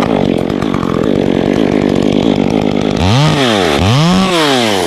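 Two-stroke chainsaw cutting a birch limb at steady full throttle, then about three seconds in it comes off the wood and revs up and down twice.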